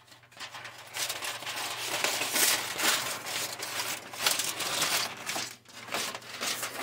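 Aluminium foil crinkling as it is peeled back off a disposable aluminium pan, a steady run of rustles for about five seconds that eases off near the end.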